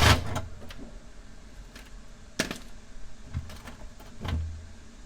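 A few sharp metal clinks and knocks, spaced a second or two apart, as tools and car parts are handled, with a brief low hum about four seconds in.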